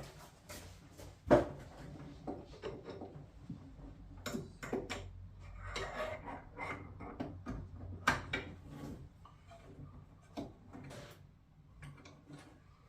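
Scattered clicks, knocks and rubbing from tools and metal fittings being handled during work on a boiler, with a sharp knock about a second in and another about eight seconds in.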